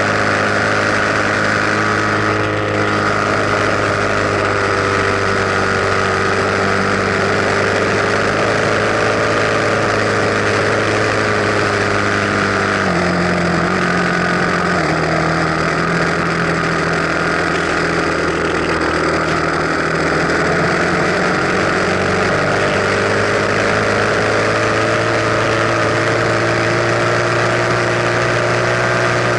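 Enduro dirt bike engine running steadily under way, with a constant rush of noise over it; the engine note shifts about halfway through and slowly climbs again later on.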